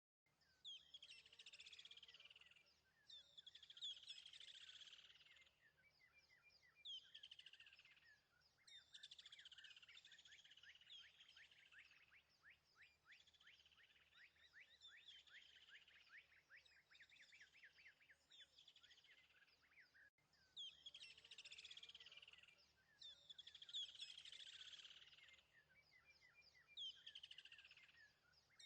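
Faint birdsong: repeated phrases of falling chirps and fast trills, over a low steady hum. About 20 seconds in, the same stretch of song starts over, as if looped.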